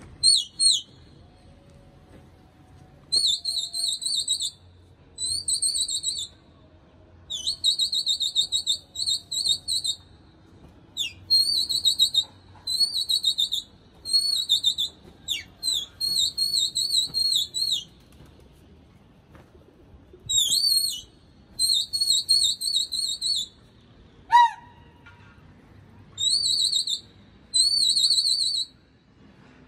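Shrill, warbling whistle blasts repeated in quick runs, each about half a second to a second and a half long, with short gaps between. This is a pigeon flyer's whistling to keep a flock of pigeons circling overhead. Once, a lower whistle sweeps down in pitch.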